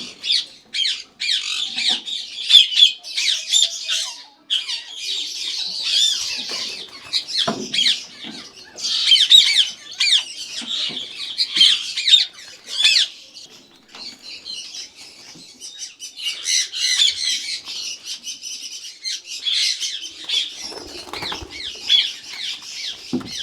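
A colony of Indian ringneck parakeets calling continuously, a dense chorus of overlapping high-pitched screeches and squawks.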